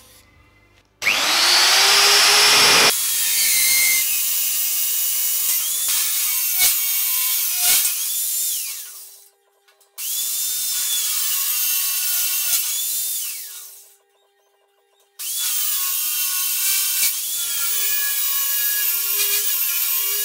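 Rotabest magnetic drill with an annular cutter boring through a steel welding-table top. The motor starts about a second in and runs with a high cutting whine, in three stretches broken by short pauses, each one ending with the pitch falling as the motor winds down.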